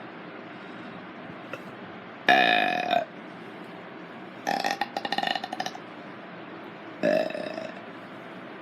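Three burps a couple of seconds apart: a long one about two seconds in, a longer stuttering one around the middle, and a shorter one near the end.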